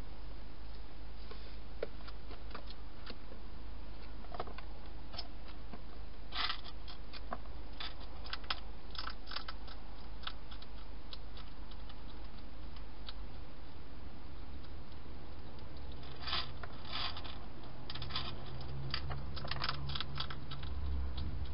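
Wild hedgehog crunching dry food, heard as clusters of sharp clicks and crackles a few seconds apart, over a steady low hum.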